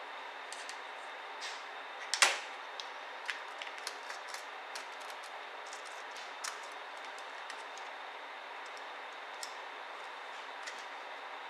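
Scattered light clicks and taps of small laptop parts being handled during disassembly, with one sharper click about two seconds in, over a steady hiss.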